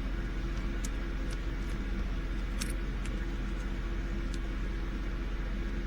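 Steady low mechanical hum, like a running fan or appliance, with a few faint light ticks.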